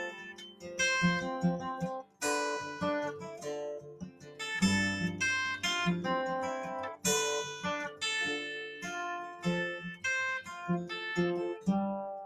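Acoustic guitar played solo: an instrumental passage of picked notes and strummed chords, each ringing and dying away, the last chord fading out near the end.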